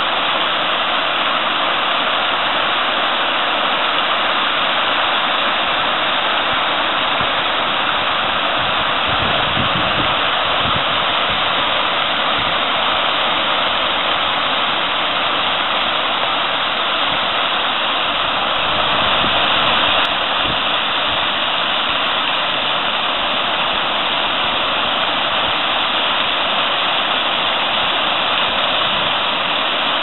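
Fountain water splashing steadily: jets spraying up and a sheet of water pouring off the rim of a wide bowl into the pool below.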